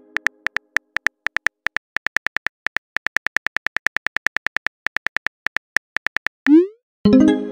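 Phone keyboard typing clicks from a texting-story app: a rapid, slightly uneven run of short high clicks, about five or six a second, as a message is typed letter by letter. The clicks stop about six seconds in, followed by a short rising whoosh as the message is sent and a pitched pop-like chime near the end.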